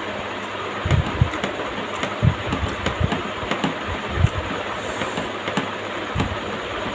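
Close-miked chewing while eating curry: irregular soft low thumps and a few small wet clicks over a steady hiss.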